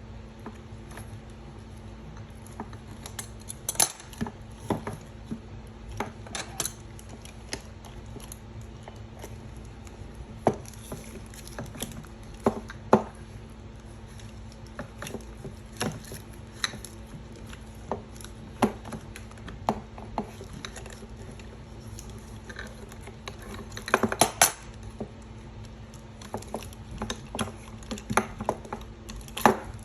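Irregular metallic clinks and taps of an adjustable wrench and small nuts being worked off a light fixture's bolts, with a quick flurry of clinks about 24 seconds in.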